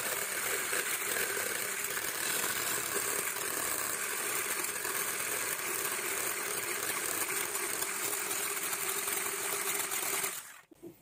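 Electric hand blender with a whisk attachment running steadily, whipping egg whites into a fluffy foam in a tall cup. It switches off shortly before the end.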